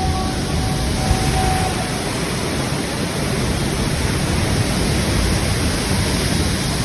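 A large waterfall's heavy flow of falling water, a loud, steady rush of noise.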